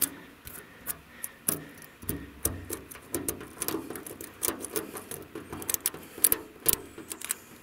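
Fingertips tapping and scraping on a sheet-metal car door around air-rifle pellet holes: a run of irregular light clicks and scratches.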